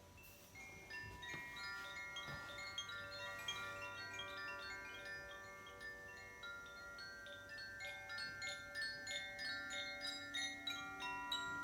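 Makino-style tuned chimes played solo. Many metal notes are struck one after another, each ringing on and overlapping the next, and the strikes come quicker and denser over the last few seconds.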